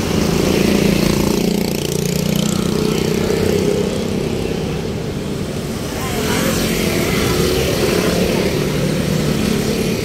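Motor vehicle engine running amid road traffic noise; the engine note rises about two seconds in, and the sound eases off around five seconds before picking up again near six.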